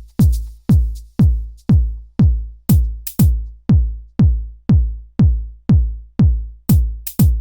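Electronic dance music with a deep, pitch-dropping kick drum struck steadily about twice a second and occasional sharp hi-hat and clap hits.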